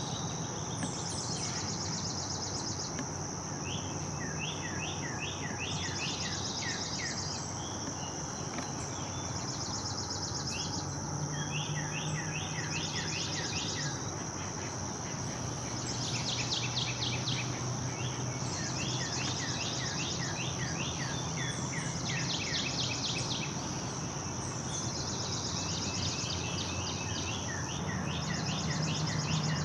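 Outdoor ambience at a pond: an insect keeps up a steady high buzzing trill while a bird sings repeated series of quick down-slurred notes, over a low steady hum.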